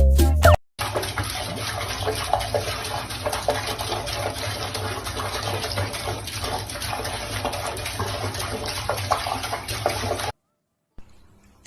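Water running steadily, like a tap or shower, for about nine seconds. It cuts off abruptly near the end.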